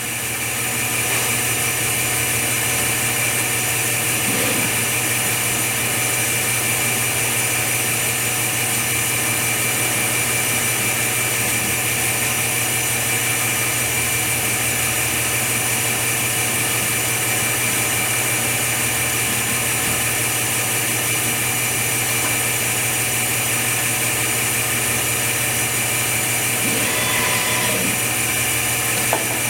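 Machine running with a steady hum and several constant whining tones, with a few faint brief mechanical sounds about four seconds in and again near the end.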